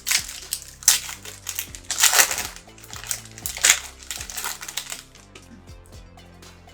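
Plastic wrapper of a trading-card pack crinkling in a run of loud rustles as the pack is opened and handled, settling down about five seconds in. Background music plays underneath.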